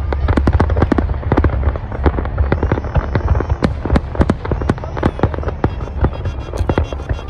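Fireworks going off: rapid, overlapping bangs and crackles, several a second, over a constant low rumble.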